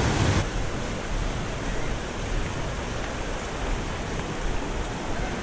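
River water rushing steadily over waterfalls and rapids. The rush drops in level and loses some of its low end abruptly about half a second in, then runs on evenly.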